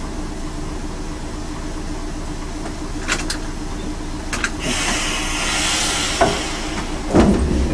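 Railcar running slowly along the track with a steady engine hum. Wheels click in pairs over rail joints, there is a burst of hissing about two-thirds of the way through, and a heavier clatter comes near the end.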